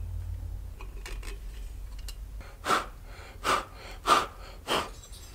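A person's breath: four short puffs of air about half a second apart, over a steady low hum, with a few faint clicks of parts being handled before them.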